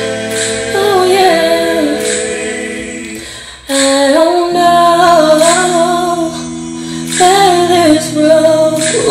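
Music: a slow sung ballad with long, wavering held notes over steady lower harmony. The singing dips and breaks off briefly about three and a half seconds in before the next phrase starts.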